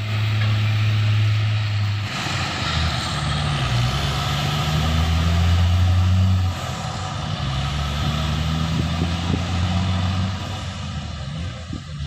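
Heavy truck engine running under load, its pitch shifting several times as it works up the hill.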